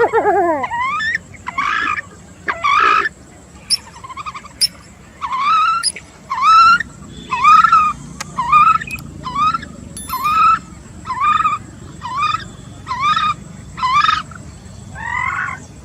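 Coot calling over and over, a short call about once a second, each call sweeping up in pitch.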